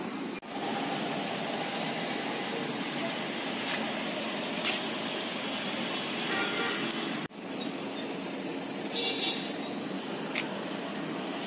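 Steady outdoor background noise with road vehicles, dropping out briefly twice.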